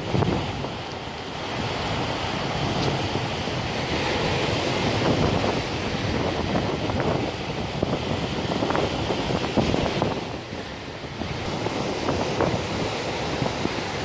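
Ocean surf washing in over a flat shelf of rock and boulders at the water's edge, swelling and easing, with wind buffeting the microphone.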